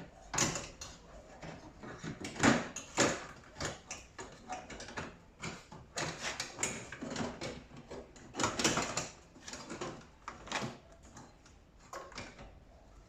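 Irregular knocks, clicks and rustling of tumble dryer parts being handled as its pipes are pushed on and fitted tight.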